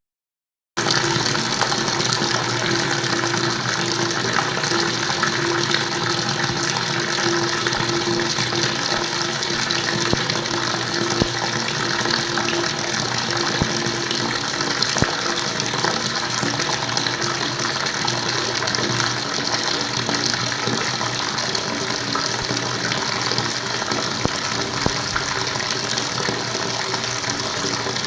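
Flowing water rushing steadily, resuming after a short dropout of silence in the first second. A faint steady hum sits under it for roughly the first half.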